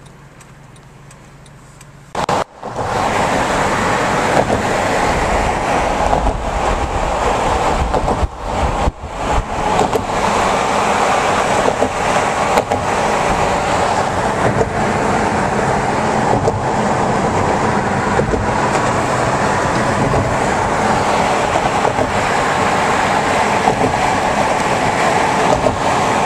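Loud rush of wind and road noise from a moving car, with the camera at an open side window. It starts abruptly about two seconds in, after a quieter hum, runs steadily, and dips briefly about eight seconds in.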